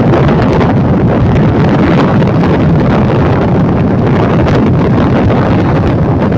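Loud, steady wind rushing over the microphone aboard a ferry at sea.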